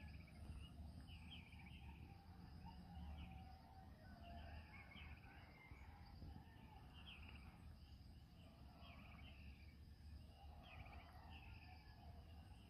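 Faint chorus of small animal chirps and trills, repeating every second or so, over a low rumble.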